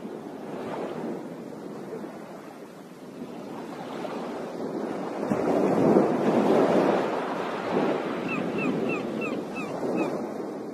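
Ocean surf washing onto a beach, a steady rushing wash that swells to its loudest about six seconds in. Near the end a quick run of about seven short, high, falling chirps sits over it.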